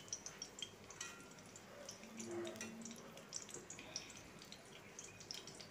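Faint sizzling of stuffed bitter gourd halves frying in shallow oil in a steel kadai, with scattered small crackles and pops.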